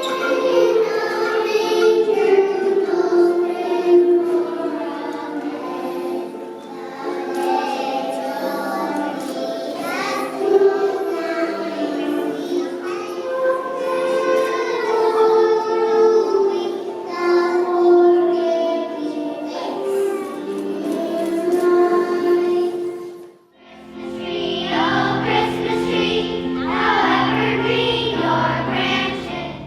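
Children's choir singing a Christmas song. The singing breaks off for a moment near the end, then resumes with a fuller, deeper sound underneath.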